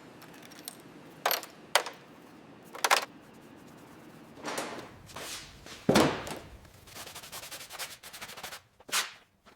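Irregular sharp clicks and knocks of metal parts and tools being handled while car pedals are worked on, with a heavier thud about six seconds in.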